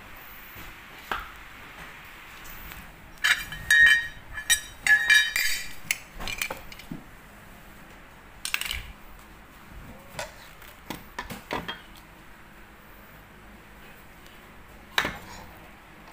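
Metal and plastic planer accessories (a fence guide, blade gauges and a blade holder) clinking and knocking against each other and a tile floor as they are picked up and handled. A cluster of ringing metallic clinks comes about three to six seconds in, followed by scattered single knocks.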